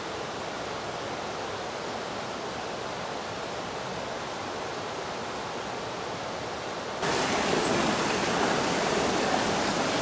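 Steady rush of flowing water with no other sound standing out; about seven seconds in it jumps suddenly to a louder, fuller rush of a fast mountain river.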